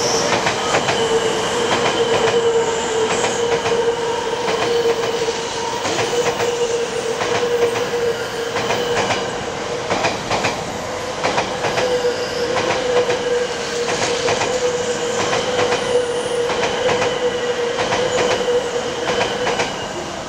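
Electric train running along the tracks, with a steady whine held for most of the time and wheels clicking over rail joints.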